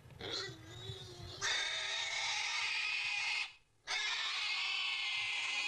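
Animal calls or squeals from a short clip, changing abruptly about a second and a half in and broken by a brief silence a little past halfway.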